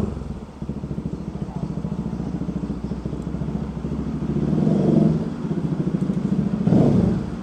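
Kawasaki Bajaj Rouser RS200 motorcycle's single-cylinder engine running as the bike is ridden at low speed, with the throttle opened a little about five seconds in and again near the end.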